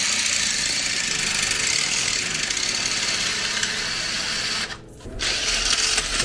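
Power drill with a long 12-inch masonry bit boring into a brick wall, running steadily. It stops for about half a second near the end and starts again.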